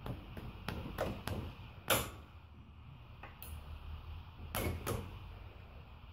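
Sharp metallic clicks of a socket ratchet being worked on a bolt on a lawn tractor engine: about ten separate, irregular clicks, the loudest about two seconds in.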